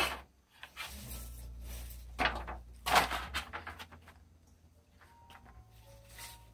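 A few short scraping and knocking handling sounds as cut basil leaves are packed into a food storage container, over a faint low hum.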